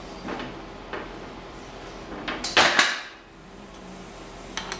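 Metal hand-tool work against a steel plate on a perforated steel welding table: a few light knocks, then a louder scraping clatter about two and a half seconds in, and a couple of clicks near the end.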